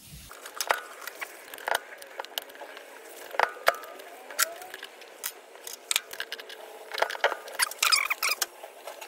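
Small clicks, taps and rattles of a throttle cable and its metal end fitting being handled and seated in the carburetor throttle linkage, with a short burst of scraping and rustling near the end.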